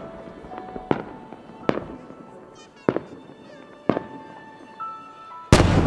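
Aerial firework shells: sharp bangs about once a second, then a much louder boom about five and a half seconds in as a large shell bursts, with faint music underneath.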